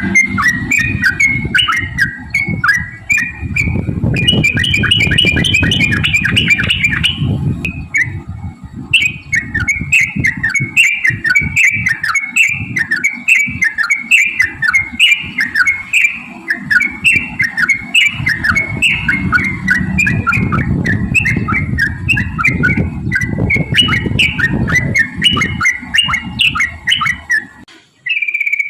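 Sooty-headed bulbul singing a long, rapid run of short repeated chirping notes, with a brief pause about eight seconds in. A low rumble of background noise runs underneath.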